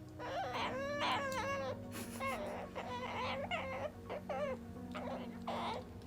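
Ducorps cockatoo mumbling: a run of short, warbling calls that bend up and down in pitch, with brief pauses between them.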